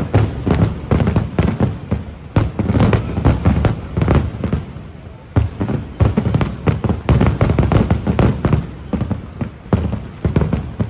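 Fireworks going off in rapid succession, several bangs a second, with a brief lull about five seconds in.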